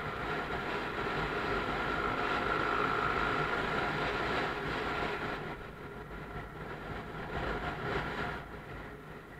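Motorcycle running along a road, its engine mixed with wind and road noise, with a steady high whine. The sound drops about halfway through and again near the end.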